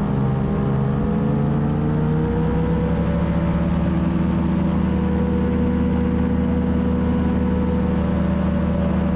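An engine running steadily, its pitch rising over the first three seconds and then holding.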